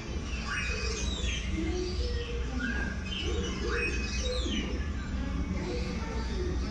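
Many short bird chirps and calls, several overlapping, over a steady low hum.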